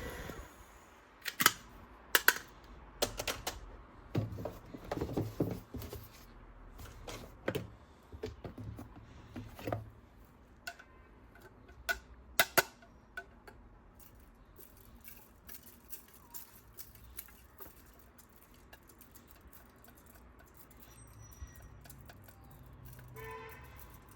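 Hard plastic toys and packaging being handled: a series of sharp clicks, taps and knocks, loudest in the first half, then lighter scattered ticking, with a brief pitched toy tone near the end.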